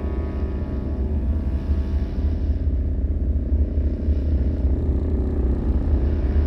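Low, dark horror ambience drone: a steady deep rumble under layered sustained tones, with no distinct hits or events.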